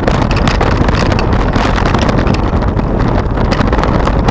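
Mountain bike rolling along a rough dirt trail: a steady rumble of wind and tyres on the bike-mounted camera's microphone, with frequent small clicks and rattles from the bike over the bumps.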